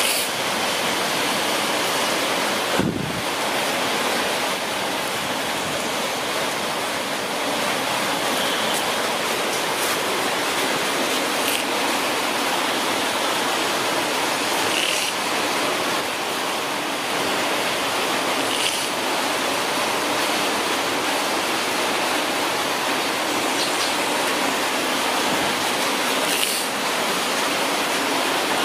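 A steady, even rushing hiss with a few faint clicks scattered through it.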